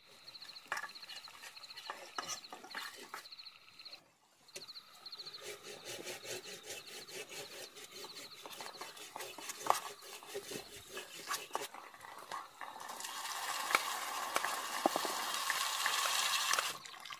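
Wood campfire crackling, with many sharp pops and snaps. About thirteen seconds in, a louder steady rush of flame noise joins the crackle.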